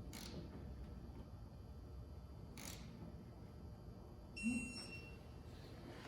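A short, faint electronic beep about four and a half seconds in, over low room hum, with a faint click near the middle.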